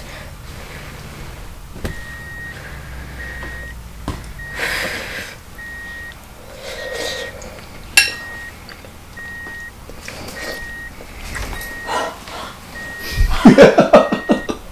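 An electronic beeper sounding short, evenly spaced beeps, about three every two seconds. A few rustles and one sharp click fall in the middle, and near the end comes a loud burst of quick pulsing voice sounds.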